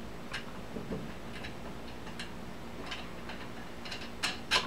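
Scattered light clicks and taps of small hardware and wooden parts being handled as a washer and wing nut go onto a threaded rod, with a few sharper clicks near the end.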